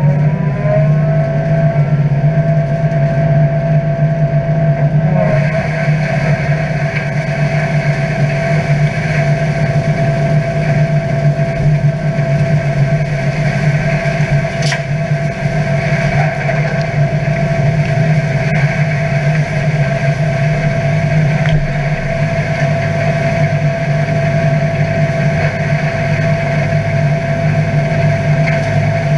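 McHale C460 straw chopper running off a Deutz-Fahr DX 4.70 tractor (air-cooled four-cylinder turbo diesel), chopping and blowing out straw: a steady low hum under a steady whine. The whine rises in pitch over the first two seconds as the machine comes up to speed, and a louder rushing hiss joins about five seconds in.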